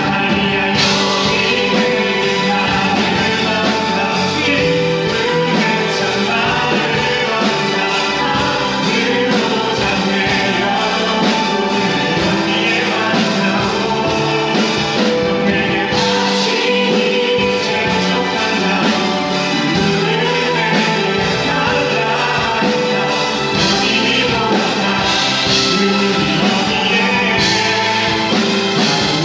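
Praise team performing a contemporary worship song live: voices singing over keyboard-led band accompaniment.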